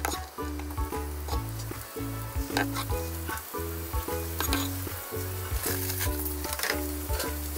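Strips of daikon peel and red bell pepper sizzling as they stir-fry in hot sesame oil in a square tamagoyaki pan, with a few sharp clicks of utensils. Background music with a steady beat plays throughout.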